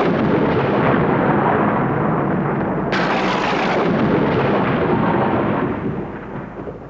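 Thunder: a loud rumbling crash, then a second sharp crack about three seconds in, and the rumble dies away near the end.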